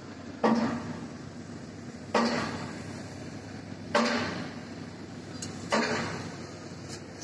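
Heavy knocks repeating at a steady pace, about one every second and three-quarters, each striking sharply and then ringing away briefly.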